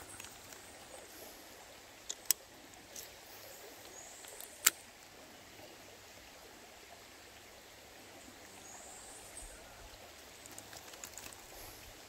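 Steady, quiet rush of a shallow river flowing over gravel, broken by a few sharp clicks: two close together about two seconds in and a louder one near the five-second mark.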